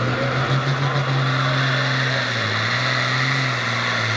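Turbocharged farm stock pulling tractor's diesel engine running hard at high revs while hooked to the sled, blowing black smoke. The pitch stays steady and dips briefly about halfway through before coming back up.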